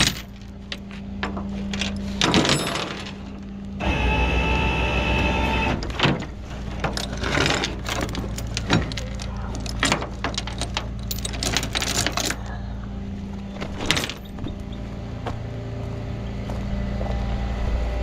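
Steel tow chain and hook clinking and rattling as they are hooked to a burned-out car's frame, over the steady hum of the rollback tow truck's running engine. About four seconds in, a louder mechanical hum with a steady whine runs for roughly two seconds.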